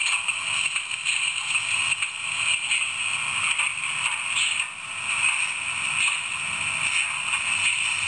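Sound decoder of a Roco H0 model steam locomotive playing steam-engine running sounds through its small onboard speaker as the model moves: a steady hissing chuff with little bass.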